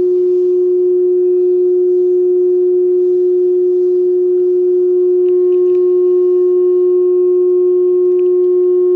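Public-address system tone, like microphone feedback: a loud, steady single-pitched tone with fainter overtones above it, holding the same pitch without a break.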